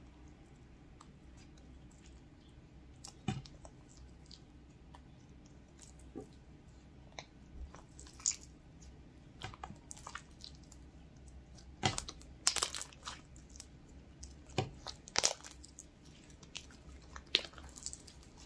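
Homemade slime being kneaded, folded and stretched by hand: soft sticky clicks and squelches. They are sparse at first and come more often and louder in the second half.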